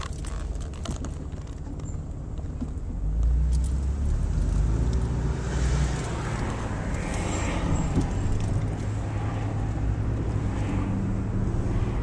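Car engine and tyre rumble heard from inside the cabin while driving, growing louder about three seconds in.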